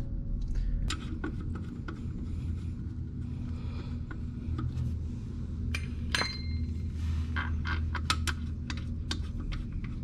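Light metallic clinks and ticks of steel lug bolts being handled and started by hand into a motorcycle's rear wheel hub, one sharper ringing clink about six seconds in, over a steady low hum.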